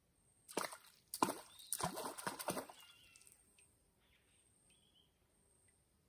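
Water splashing several times in quick succession, then dying away, with faint bird calls afterwards.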